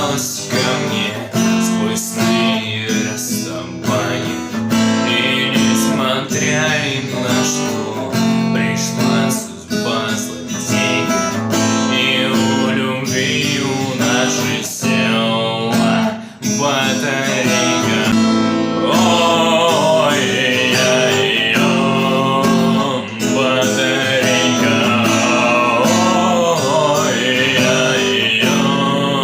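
Strummed acoustic guitar playing a song, with a higher melody line coming in over the strumming about two-thirds of the way through.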